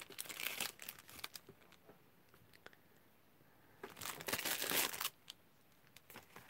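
Cellophane wrapper crinkling as it is worked off a pack of patterned paper, in two spells: during the first second or so and again about four seconds in.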